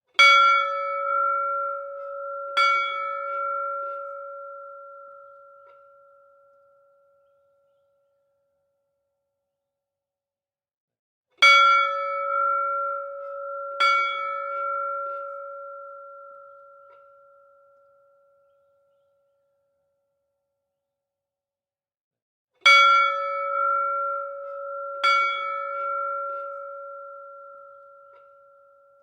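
A bell struck in pairs, the second strike about two and a half seconds after the first. Each strike gives a clear, pitched ring that fades away over several seconds. The pair comes three times, about every eleven seconds.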